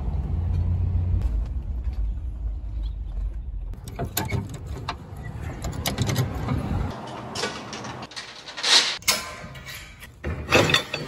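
A vehicle's engine and road rumble heard from inside the cab while driving. Then chain clinks and a few sharp metal clanks as a ratchet chain binder is worked and the trailer ramp's lock pin is pulled, the loudest hits coming near the end.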